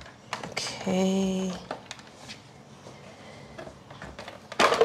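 Faint knocks and clicks of orange halves being pressed and handled on an electric citrus juicer, with a louder clatter near the end.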